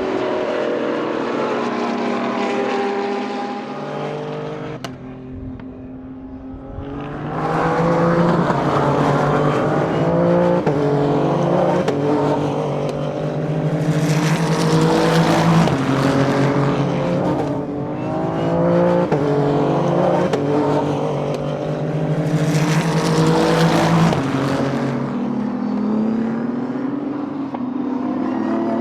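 Race cars at speed on a circuit, engines revving up through the gears with repeated quick upshifts as several cars pass in turn. The engine sound dips for a couple of seconds about five seconds in, then comes back louder as more cars go by.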